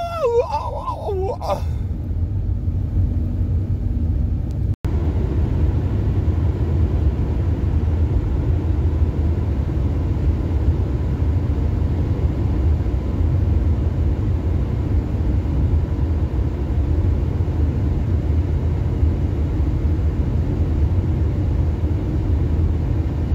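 Steady low rumble of road and engine noise heard inside a moving vehicle's cabin. A wavering, howl-like human voice trails off about a second and a half in, and the sound drops out for an instant about five seconds in.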